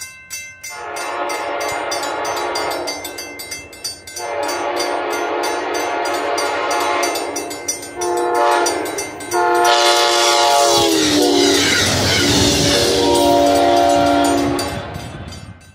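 Diesel locomotive's multi-chime air horn sounding a series of long blasts and a short one for a grade crossing, while the crossing bell dings rapidly. Near the end the train passes close by: the horn's pitch drops as it goes past, over a loud rush of wheels on the rails.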